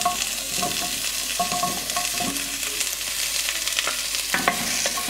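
Oil sizzling in a pot of frying onions as raw pumpkin cubes are tipped in and scraped off a glass bowl with a spatula, with scattered scrapes and light knocks over a steady hiss.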